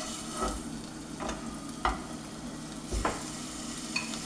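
Flour-dusted beef cubes sizzling as they are laid into hot olive oil to sear, with metal tongs clicking sharply against the pot several times.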